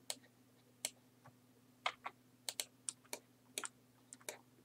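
Computer keyboard clicks: a dozen or so short, light keystrokes at an irregular pace, over a faint steady low hum.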